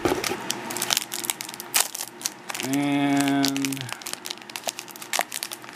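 Foil wrapper of a Pirates constructible strategy game booster pack crinkling in the hands as it is opened, with many sharp, irregular crackles.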